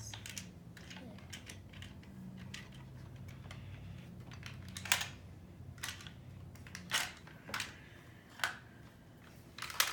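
Plastic toy parts clicking and clacking as they are handled, about six sharp clicks spread over the second half, over a faint low hum.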